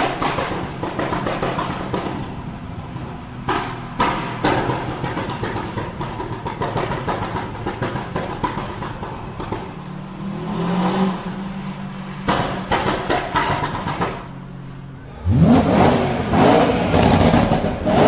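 Performance car engine running with its exhaust popping and crackling in many sharp, irregular bangs. About fifteen seconds in, after a brief lull, the engine is revved hard, its pitch climbing steeply, and it stays loud.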